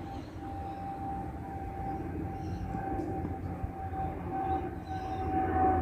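Qantas de Havilland Canada Dash 8 turboprop climbing out after takeoff: a steady engine whine over a low rumble, growing louder near the end as it approaches.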